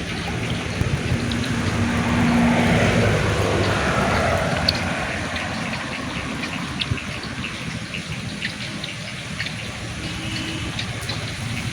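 A motor vehicle's engine passing by, swelling about two seconds in and fading away, over steady outdoor noise with scattered small clicks.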